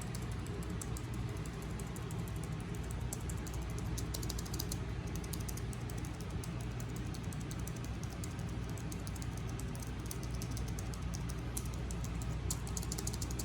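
Logitech MX Keys Mac membrane keyboard being typed on, a quick run of soft key clicks, over the steady hum of an air conditioner.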